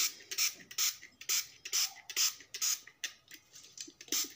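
Metal spoon scraping against a ceramic bowl in short, even strokes, about two a second, as a thick paste of cheese, starch and rose water is mixed.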